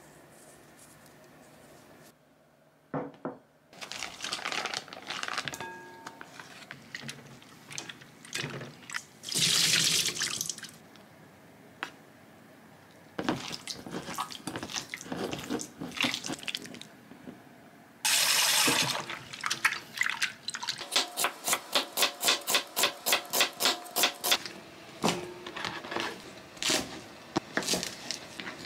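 Kitchen work at a sink: a tap runs in short spells, hands knead and wash meat with potato starch in a glass bowl, and near the end a knife chops rapidly on a bamboo cutting board, about four to five strokes a second, then more slowly.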